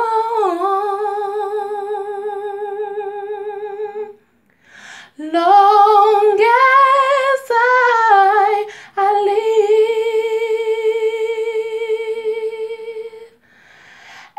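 A woman singing a cappella, holding long notes with vibrato: one long note, a breath, a short phrase that climbs and moves in pitch, then another long held note.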